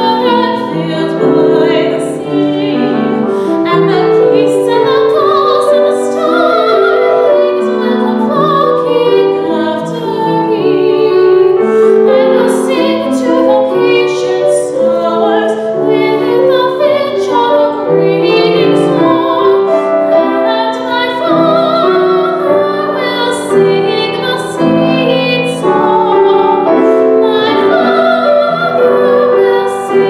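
A female classical singer, in operatic style with vibrato, sings an English art song with piano accompaniment.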